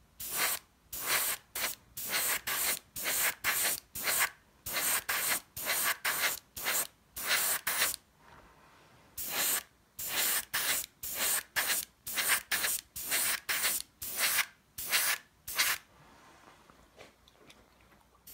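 Airbrush spraying light rust weathering paint in short hissing bursts, about three a second. It pauses for about a second partway through, then carries on and stops a couple of seconds before the end.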